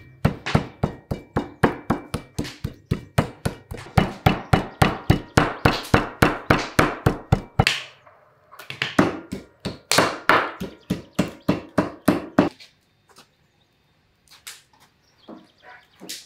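Metal meat tenderizer mallet pounding a raw chicken fillet on a wooden cutting board in quick, even strikes of about four a second. A short pause comes about eight seconds in, then a second run of strikes, then a few separate knocks near the end.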